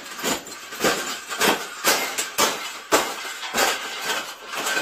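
Wire bird cage being bent and folded flat by hand, its metal frame clanking and rattling in repeated sharp knocks about twice a second.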